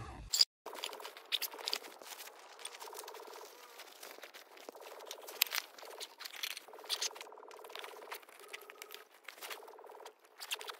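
Rustling and crinkling as a backpack and tent fabric are handled, with many small clicks and knocks. There is a sharp knock about half a second in and another about five and a half seconds in.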